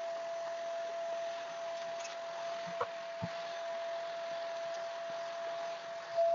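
Hitachi drum vacuum cleaner running steadily, heard turned down low: an even hiss with one steady whine. A few light knocks come around the middle.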